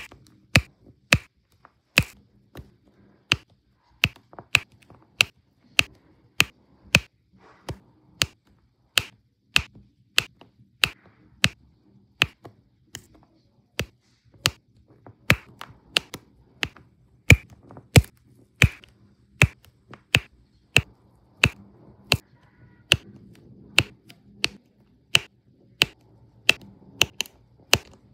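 Sharp clicks from a diamond painting drill pen pressing resin drills onto the adhesive canvas one after another, about two a second at an uneven pace.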